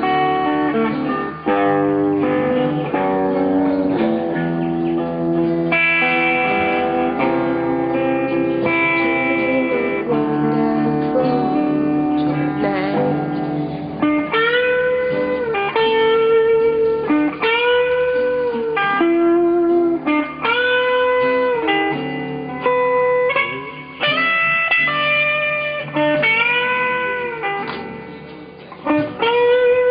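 Guitar playing a bluesy melodic line, busy at first, then from about halfway long held notes that each bend up in pitch and fall back, roughly one every two seconds.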